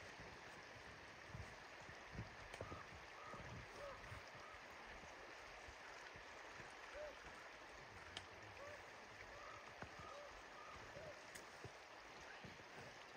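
Faint, steady hiss of river water flowing. A few short, faint calls come in two runs, one about a quarter of the way in and another past the middle.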